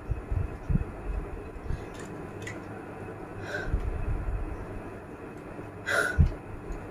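Short breaths and sniffs through the nose while trying to bring on a sneeze, with a sharper, louder sniff near the end, over a few low thumps.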